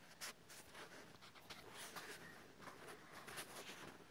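Near silence, with faint scattered rustles and handling noise from a handheld camera being moved.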